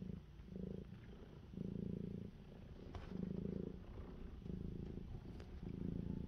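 Domestic kitten purring steadily at close range, a low buzzing purr that swells and eases in waves every second or so.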